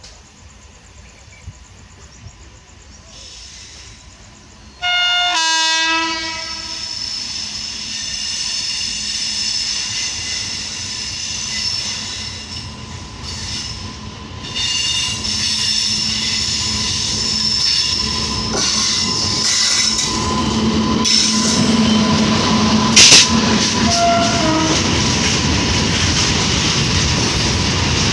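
A WAG-9H electric locomotive sounds its horn in one short, loud blast about five seconds in. The locomotive and its empty BCNA covered wagons then roll past with a building rumble, high steady wheel squeal and the clickety-clack of wheels over rail joints.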